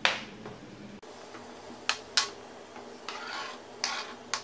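Sliced mushrooms being scraped off a plastic cutting board into a pan with a spatula: a few short taps and scrapes, with a softer scraping stretch a little after the middle.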